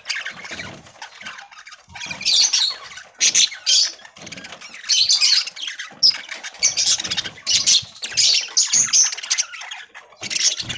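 Flock of budgerigars chattering and chirping in busy, overlapping bursts.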